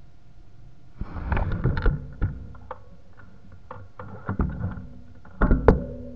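Knocks and rattles of a handlebar-mounted action camera as the mountain bike is shifted about, in three short bouts, over a faint steady high whine.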